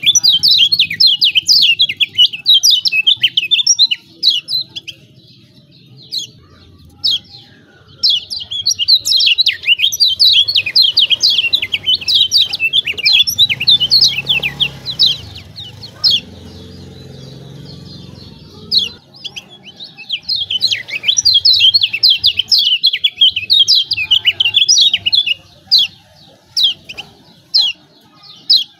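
Kecial kuning (Lombok white-eye) giving rapid 'ciak ciak' chattering calls: fast runs of high, sharp chips in three long bursts with short pauses, thinning to scattered single chips near the end.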